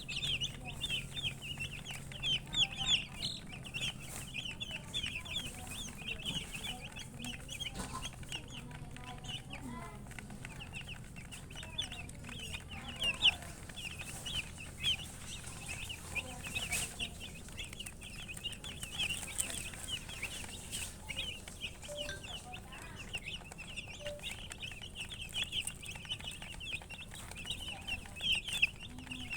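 A brood of baby chickens peeping continuously: many short, high chirps overlapping one another, with a couple of sharp clicks partway through.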